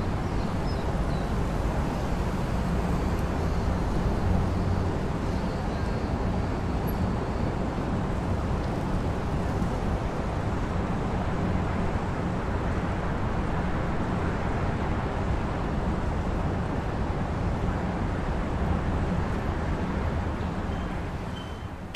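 Steady road traffic noise: an even, unbroken hiss and rumble of passing vehicles, with no single car standing out.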